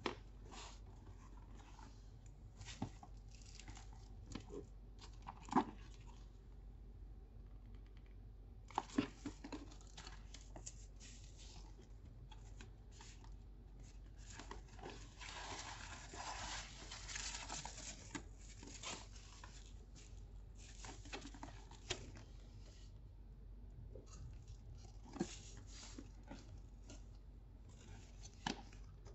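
Tissue paper rustling and crinkling as the stuffing is pulled out of a handbag, densest about halfway through, with scattered light clicks and taps from handling the bag.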